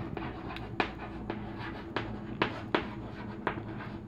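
Chalk writing on a chalkboard: a string of sharp taps and short scratches as letters are stroked out, irregularly spaced, over a faint steady low hum.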